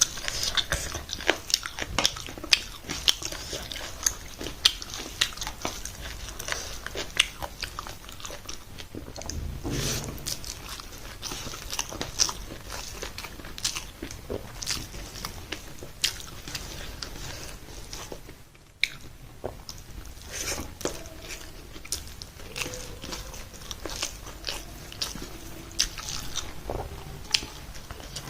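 A person chewing and biting food close to the microphone, with frequent sharp crunching clicks.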